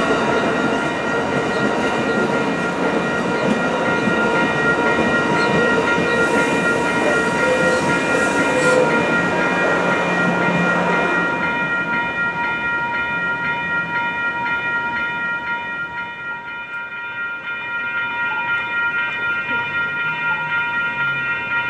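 Amtrak Pacific Surfliner passenger train rolling through a grade crossing, its wheels clattering on the rails while the crossing bells ring steadily over it. The train noise fades after about ten seconds as the trailing cab car clears, and the crossing bells keep ringing.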